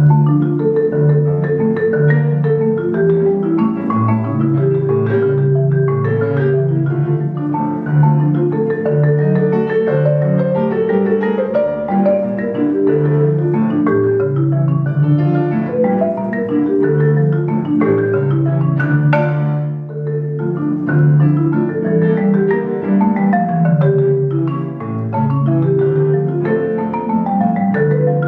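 Concert marimba played with four mallets in a competition final: a dense stream of notes across the instrument's range, starting suddenly out of quiet.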